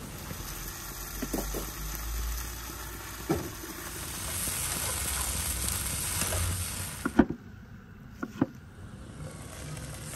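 Tomatoes sizzling in a frying pan on a camp stove, with a few sharp clacks of a spatula against the pan. The sizzle swells about halfway through, then drops off suddenly and carries on fainter.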